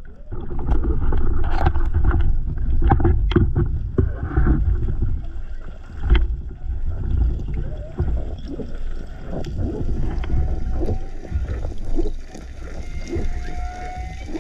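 Underwater water noise on a diver's camera as a spearfishing freediver swims up toward the surface: a steady low rush of moving water with scattered knocks and clicks.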